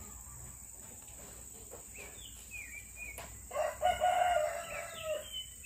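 A rooster crows once, a long pitched call starting about three and a half seconds in, with short falling bird chirps before and after it.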